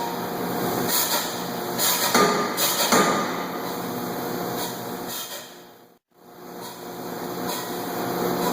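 Steady hum of running forging-hammer machinery, with about five sharp knocks in the first three seconds. The sound drops out briefly about six seconds in.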